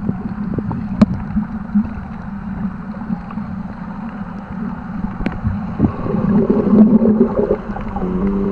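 Underwater sound picked up by a submerged camera: a steady low drone of a boat engine carried through the water, with a few sharp clicks, one about a second in and another about five seconds in. A louder bubbling, gurgling swell comes near the end.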